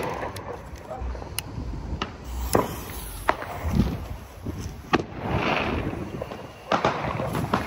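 Brothers 'Spring Fling' firework spinner lit and starting to spin and throw sparks: a hiss that swells about five seconds in and grows louder near the end, with scattered sharp clicks and pops.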